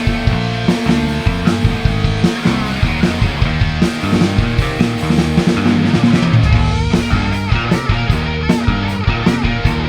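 Live rock band playing an instrumental passage: guitars over bass and drums, with a steady beat.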